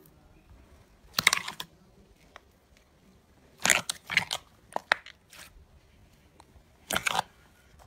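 Hands pressing and poking into a large mass of glossy red slime, giving short crackling, popping bursts as air is squeezed through it. There are a few separate bursts: one about a second in, a cluster around four to five seconds, and one near the end.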